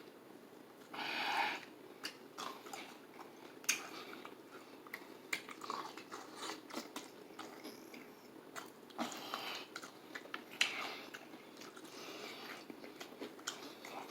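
A person chewing crispy fried chicken close to the microphone: irregular crunches and wet, smacking mouth clicks, with a few louder crunchy bites.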